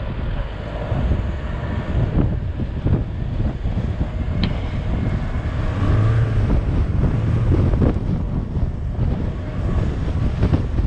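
Four-wheel-drive SUV engine running as the vehicle drives over soft, dry desert sand, with wind buffeting the hood-mounted microphone. A brief high squeak about four and a half seconds in.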